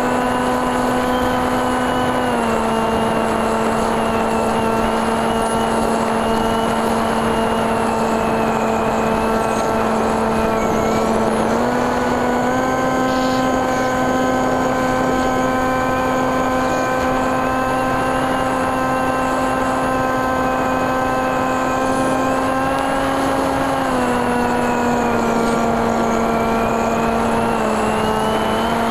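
Quadcopter's brushless motors spinning 8x6 propellers, heard from the onboard camera: a steady buzzing hum whose pitch drops slightly about two seconds in, rises again around the middle and dips again near the end as the throttle changes.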